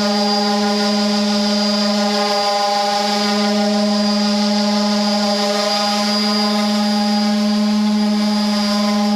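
Electric sander running at a constant speed: a steady, even motor drone with a faint high whine above it.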